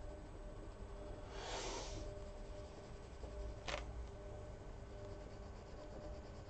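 A Prismacolor coloured pencil scratching across paper in one short stroke about a second and a half in, then a single sharp tick near the middle, over a faint low hum.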